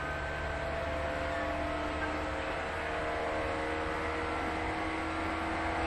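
Onboard running sound in the motor car of a JNR-built 115 series electric multiple unit: steady rumble of wheels on rail under several steady whining tones from the traction motors.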